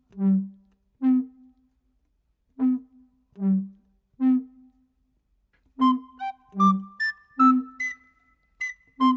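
Background music: a slow, even pattern of low pitched notes, joined about six seconds in by a higher held melody and light sharp ticks.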